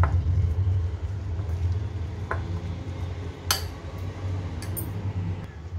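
A metal spoon knocking and clinking a few times against a ceramic bowl while stirring a thick batter, the sharpest clink about three and a half seconds in, over a steady low hum.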